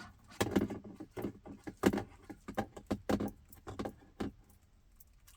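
Irregular plastic clicks, knocks and light rattles, about a dozen over four seconds, as a multi-port car cigarette-lighter charger splitter and its cables are handled and set up, then quieter near the end.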